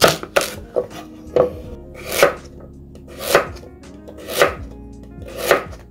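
Kitchen knife cutting through large Korean radishes (mu) on a cutting board. It makes a few quick strokes at first, then single cuts about once a second, each ending in a sharp knock on the board.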